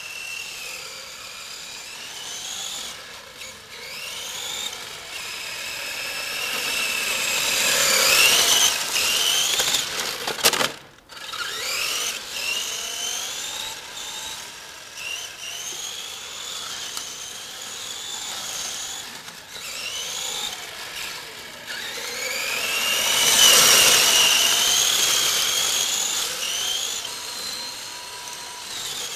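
A 1/10-scale HPI drift RC car's electric motor and drivetrain whining, the pitch repeatedly rising and falling with the throttle, with tyre noise on tarmac. The sound swells to its loudest twice, about eight seconds in and again near twenty-three seconds, as the car comes close, and drops out briefly around eleven seconds.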